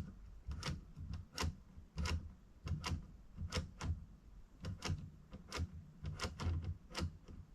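Plastic A–Z spinning wheel of a Fisher-Price Linkimals Learning Narwhal toy being turned, clicking about two to three times a second at an uneven pace.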